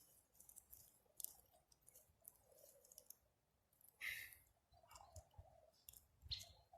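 Near silence with faint scattered clicks and a few short soft rustles, and a brief high chirp near the end.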